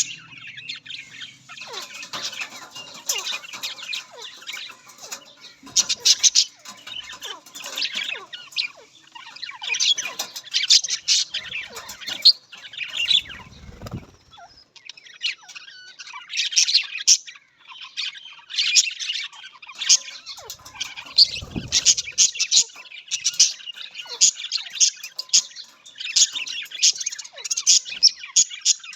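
Budgerigars chattering with continuous fast, high chirps and warbles, with two brief low thuds about halfway through.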